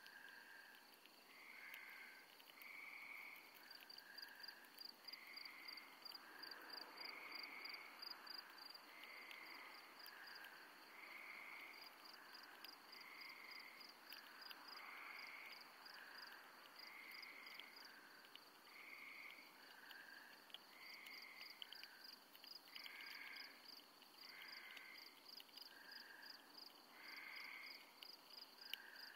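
Faint night-time animal calls: short notes about once a second, alternating between two pitches, over a fast, steady, high pulsing trill.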